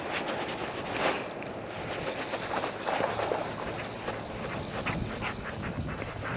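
Wind buffeting the microphone and water splashing around a kayak, with a quick run of short clicks about four to six seconds in.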